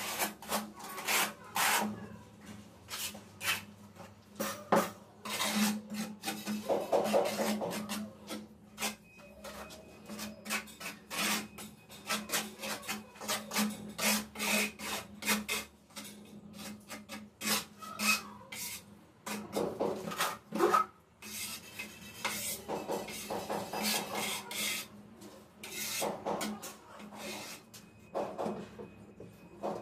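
Steel notched trowel scraping tile adhesive across the back of a large 120 × 60 matt ceramic tile in quick, uneven strokes, buttering the tile before it is set.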